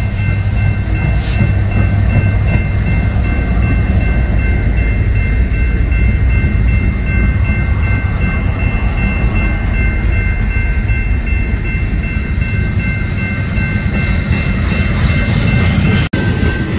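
A BNSF freight train passing close by: several diesel locomotives pass with a deep, steady rumble and a thin high whine over it, followed by tank cars and boxcars rolling by. The sound cuts off abruptly near the end.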